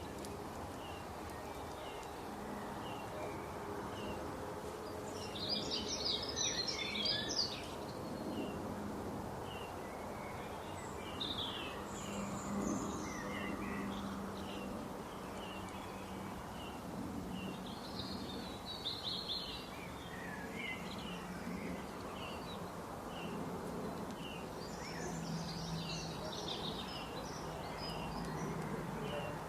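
Birds calling: a steady run of short, high chirps, with louder bursts of twittering chatter several times, over a steady background noise.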